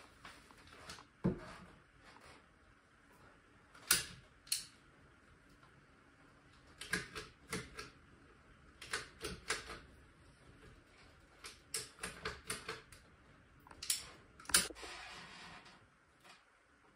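Caulking gun clicking as its trigger is squeezed in short runs of strokes, sharp clicks singly and in clusters with pauses between.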